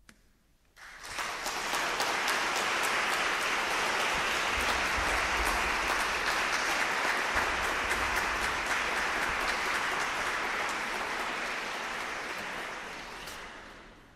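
Audience applauding, starting about a second in, holding steady and fading out near the end.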